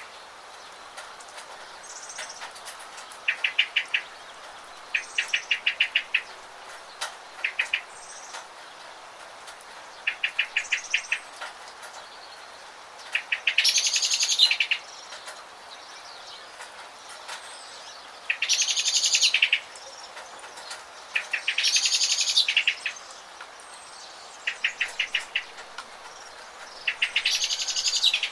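Songbirds singing in short, rapid trills repeated every second or two, with four longer, louder trills among them, over a steady hiss of rain.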